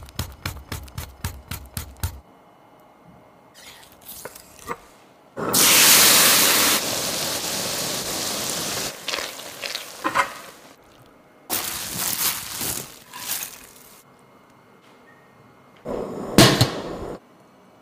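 Rapid, even knife strokes on a wooden cutting board, about four or five a second, as a cleaver scores abalone meat; they stop about two seconds in. Then a loud, steady sizzle of minced garlic frying in hot oil in a pan, and near the end a short clatter with one sharp knock as a stainless steel steamer lid is handled.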